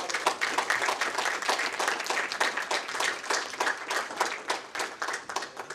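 Audience applauding, many hands clapping in a dense, irregular patter that starts to thin out near the end.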